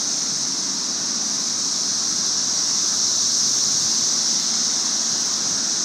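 A steady high-pitched drone of insects in the trees, over the rushing noise of a bicycle riding along a paved trail.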